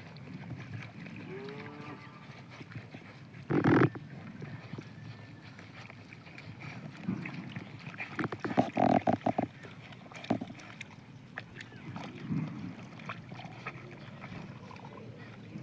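Pigs feeding on grass and grunting at intervals, with a louder call about four seconds in and a quick run of short grunts around nine seconds in.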